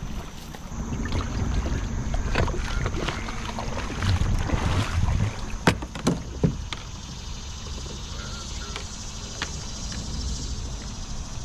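Kayak on the water with a low rumble of wind on the microphone and a few sharp knocks, the loudest about halfway through.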